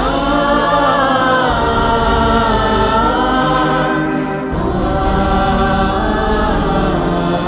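Choir singing slow music with long held notes, some of them gliding in pitch, over a steady low accompaniment.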